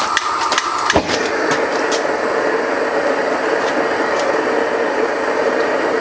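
Propane weed-burner torch lighting in a homemade forge: gas hisses briefly, catches with a sharp pop about a second in, then the burner flame runs with a steady rush.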